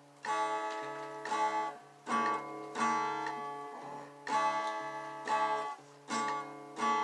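Acoustic guitar strummed in chords, a new strum about once a second in a steady rhythm.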